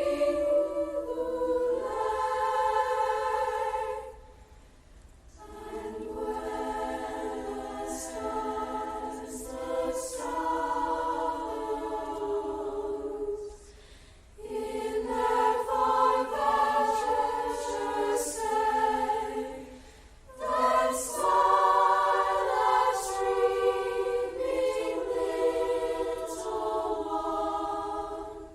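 A school choir singing a holiday song in several long phrases, with short pauses between them.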